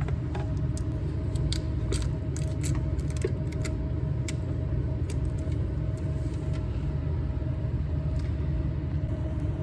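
Scattered small clicks and crackles, mostly in the first few seconds, from protective tape being peeled off a liquid flow sensor, over a steady low background hum with a faint steady tone.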